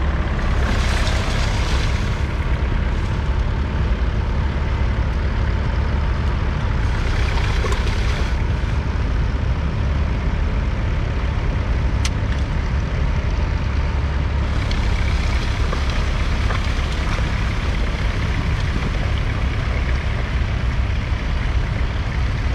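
1961 Massey Ferguson 65's 3.3-litre four-cylinder diesel engine running steadily, with a deep, even drone.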